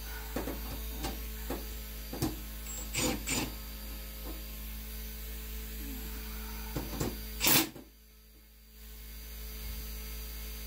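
Scattered clicks and knocks of a cordless drill and screws being handled against a school bus's sheet-metal ceiling, with one louder knock about seven and a half seconds in, over a steady low hum.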